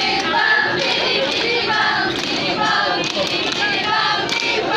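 A group of young voices singing together in unison, in short phrases.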